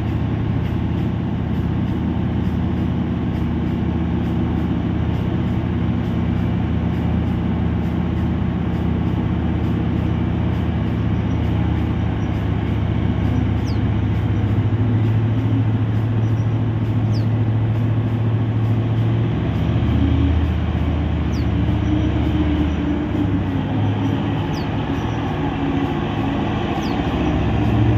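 Diesel engines of large mining haul trucks running steadily as the trucks drive along the haul road. The low drone shifts pitch a few times, most clearly about two-thirds of the way through.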